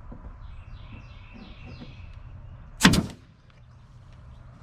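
Faint scraping as a wooden drawer is handled, then one sharp, loud knock about three seconds in.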